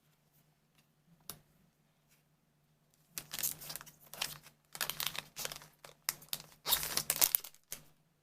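A foil booster-pack wrapper crinkling and tearing in three bursts of crackling over the middle and end, with a single light click about a second in.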